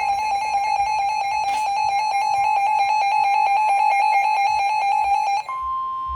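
Midland NOAA weather radio alerting: a loud, fast-pulsing electronic beep, changing about five and a half seconds in to a single steady tone, the NOAA Weather Radio warning alarm tone that signals an incoming warning broadcast.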